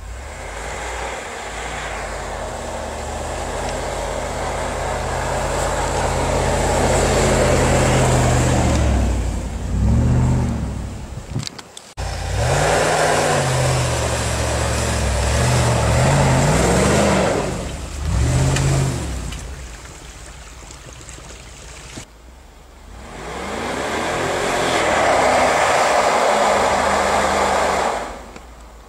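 Mercedes-Benz G500's V8 engine revving hard as the wheels churn through deep snow, its pitch swinging up and down several times over a loud rushing noise. The sound breaks off abruptly twice and picks up again.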